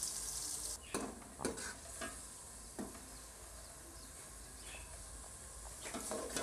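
Sliced onions and green chillies sizzling in oil in an aluminium pot, with a steady faint hiss. A steel ladle stirs and knocks against the pot several times, mostly in the first three seconds and once more near the end.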